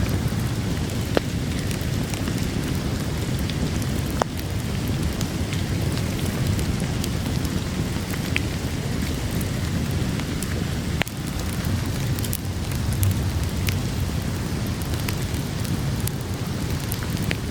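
Steady heavy rain with a low rumbling wash, and a campfire crackling over it with scattered single sharp pops every few seconds.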